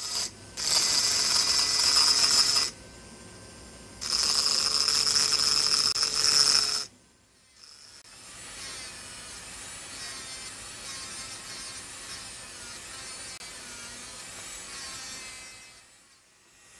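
Handheld engraving drill's burr grinding into an optical crystal glass block under a water drip: two loud, high-pitched grinding passes of about two and three seconds, then the drill running more quietly with light contact for the rest of the time.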